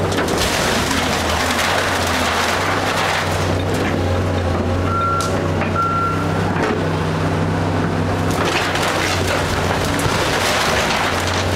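Diesel engine of heavy demolition machinery running steadily under load while tearing down a house, with a rough noisy texture of debris being worked. Two short backup-alarm beeps sound about five seconds in.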